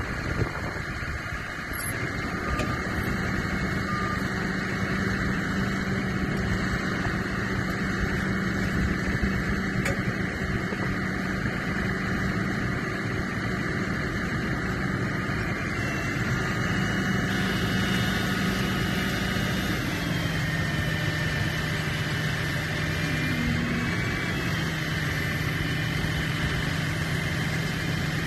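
A vehicle engine idling steadily: a low, even hum that shifts slightly in pitch about two-thirds of the way through.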